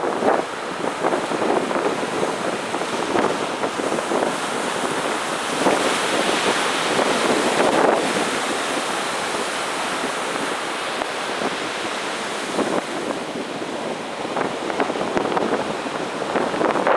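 Ocean surf breaking on a beach: a continuous wash of waves that swells louder about six to eight seconds in, then eases back.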